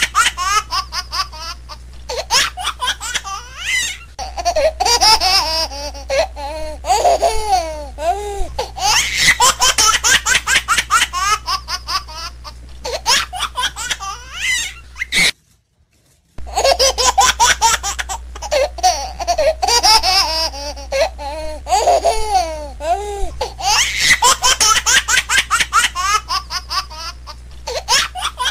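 A young child laughing hard in long runs of rapid, high-pitched giggles and belly laughs, cutting out for about a second midway before the laughter starts again.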